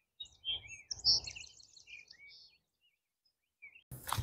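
Small birds chirping in quick, short, high calls, thinning out after the first couple of seconds. A brief loud rush of noise comes just before the end.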